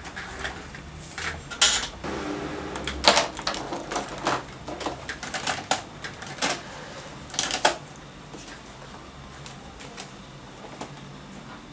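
Things being handled at a wooden desk: a run of clicks, knocks and rustles as items are rummaged from the desk's cubbyholes and notebooks are picked up. It goes quieter after about eight seconds, leaving a few light ticks.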